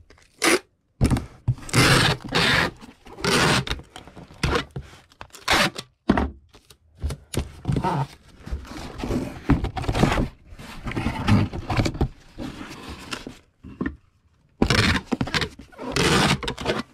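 Cardboard shipping box being handled and packed: irregular thunks and scrapes of cardboard and bubble-wrapped contents being moved about, with short pauses.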